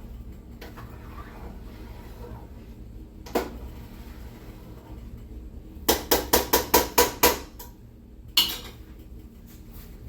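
Kitchen utensil knocked against a cooking pot: one sharp clink, then a quick run of about eight clinks a little past the middle, then one more. These are typical of a spoon being tapped clean on the pot rim after stirring the sauce.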